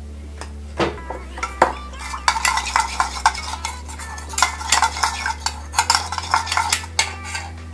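A metal spoon stirring an oil-and-vinegar salad dressing in a small bowl: a couple of single clinks, then from about two seconds in a quick run of clinking, scraping strokes against the bowl.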